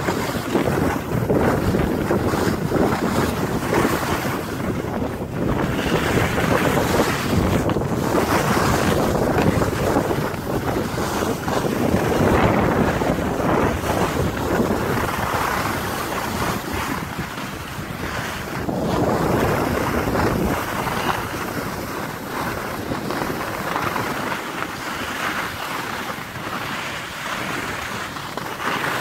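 Wind buffeting the microphone during a run down a groomed ski slope, with the hiss and scrape of edges on packed snow swelling and easing every few seconds.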